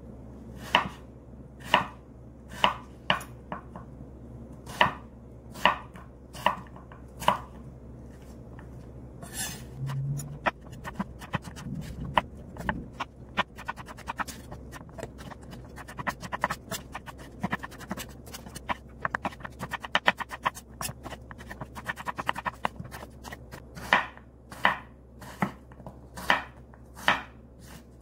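Kitchen knife chopping winter melon into cubes on a wooden cutting board: single cuts about once a second, then a fast run of rapid chops in the middle, then slower single cuts again near the end.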